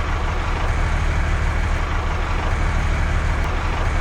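Steady, unbroken low rumble of a running vehicle engine.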